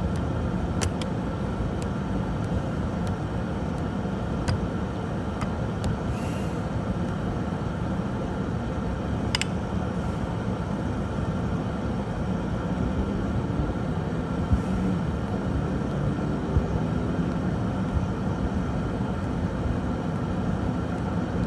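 Steady low rumble of a motor vehicle, with a few faint clicks.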